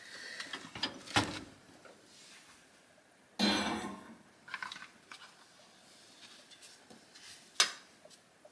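A few separate clicks and knocks of handling at a microwave oven: its door opening and closing and a heavy glass bowl being moved, with the loudest, a short scrape, about three and a half seconds in and a sharp latch-like click near the end.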